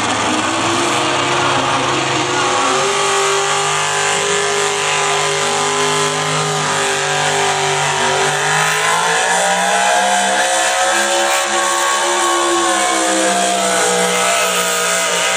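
A competition pulling vehicle's engine running hard under load through a pull. Its pitch sags about eight seconds in, then climbs higher again.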